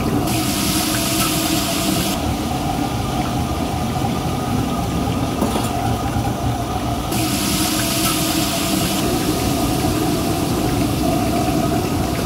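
Steady low rumbling drone of a commercial kitchen's gas wok stove. Two spells of loud hissing come in, one lasting just under two seconds near the start and another about seven to nine seconds in.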